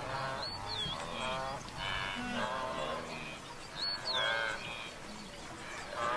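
A herd of wildebeest calling, many overlapping calls one after another. A short, high, falling call cuts in twice, about half a second and about four seconds in.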